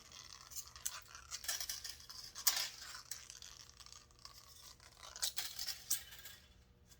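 Recoil starter spring of a Husqvarna 55 chainsaw being unwound by hand out of its housing: irregular light scraping and rustling strokes as the coiled steel spring slides and shifts.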